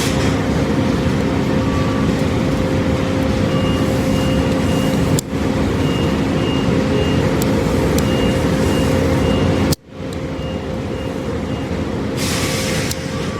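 A steady mechanical hum with a constant low drone, overlaid by groups of short, high-pitched beeps that repeat throughout. The sound drops out abruptly twice, about five seconds in and again near ten seconds.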